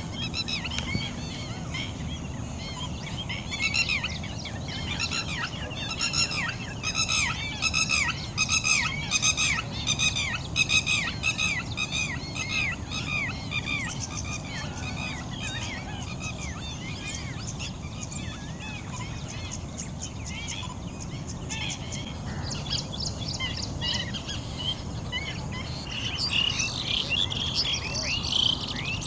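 Wild birds calling: a long run of quick, repeated sweeping chirps for about ten seconds, then scattered calls and a burst of busy chatter near the end, over a low steady rumble.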